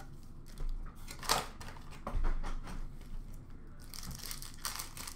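Upper Deck hockey card pack wrappers being torn open and crinkled while cards are handled: a few short rips and rustles, one sharp one about a second in, then a longer rustle near the end.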